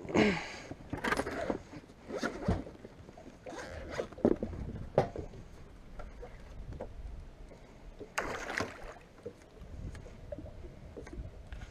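Irregular clunks, knocks and scraping of gear being handled in an aluminium fishing boat as a carpeted deck hatch is lifted and a storage compartment is rummaged through. The loudest bursts come right at the start and about eight seconds in.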